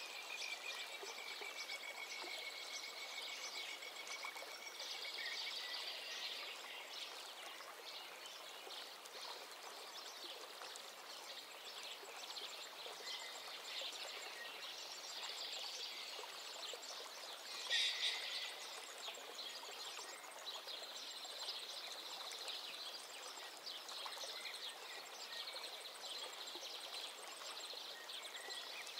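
Outdoor nature ambience: a steady hiss with bird calls and high insect chirring over it, and one louder call about 18 seconds in.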